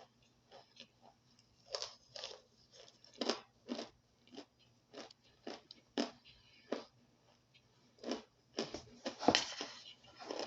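Close-up biting and chewing of toasted cornstarch chunks: a string of separate crisp crunches, one or two a second, coming thicker and loudest about nine seconds in.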